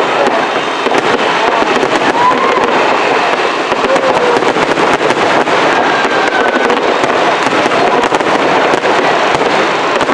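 Fireworks going off in a dense, continuous crackle of rapid pops.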